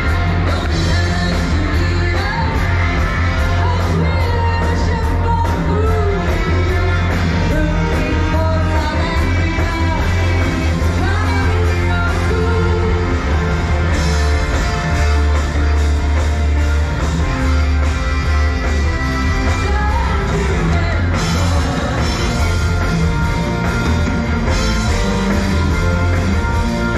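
Live rock band playing loud, with a singer over a steady drum beat and heavy bass.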